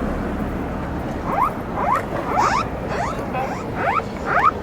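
Several mobile phones sounding Japan's earthquake early warning alert: short rising tones repeated about twice a second, starting about a second in, the phones slightly out of step with each other.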